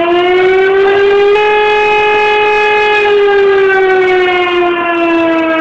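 Fire siren sounding one long wail: the pitch holds steady, then slowly winds down through the second half.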